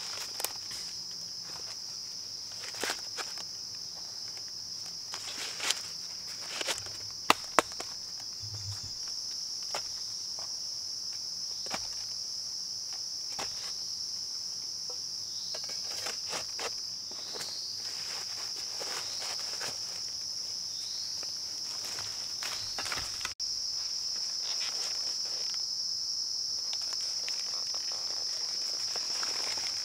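A steady, high-pitched drone of forest insects, with scattered knocks and rustles as bamboo shoots are handled in a woven basket and dry bamboo leaves are disturbed. A couple of sharp knocks about a quarter of the way in are the loudest sounds.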